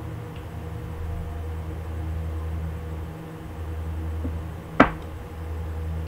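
Tarot cards being handled on a tabletop: a faint knock about four seconds in, then one sharp tap a moment later, over a steady low hum.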